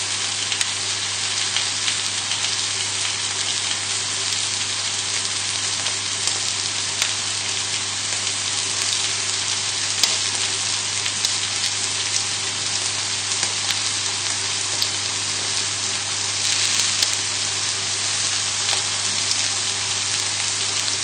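Steaks searing in a very hot frying pan: a steady sizzle dotted with small crackles and spits. The strong sizzle is the sign that the pan is hot enough for searing.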